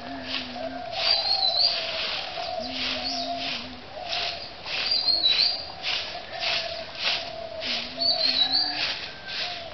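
Birds calling: a short high chirped phrase recurs about every three to four seconds, with low drawn-out dove coos among it. Under them runs a regular swishing of about two strokes a second.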